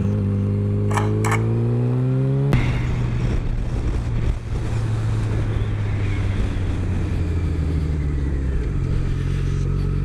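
Onboard sound of a Yamaha Fazer sport bike's inline-four engine under way: the engine note climbs steadily as it accelerates for the first two and a half seconds, then runs at a steady cruise under wind noise, dropping in pitch near the end as the bike slows.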